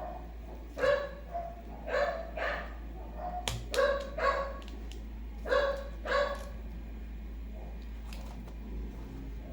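A dog barking in short pairs of barks, four times over about six seconds, with a sharp click in the middle.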